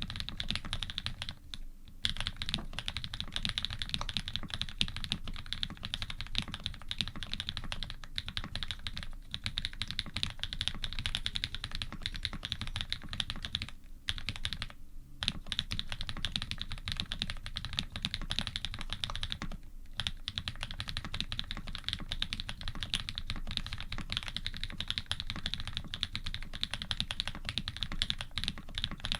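Continuous fast typing on an Iron180 custom mechanical keyboard with Krytox-lubed Cherry-housing switches with Cream stems, a carbon plate and GMK keycaps, the keys clacking densely with brief pauses about two, fourteen and twenty seconds in.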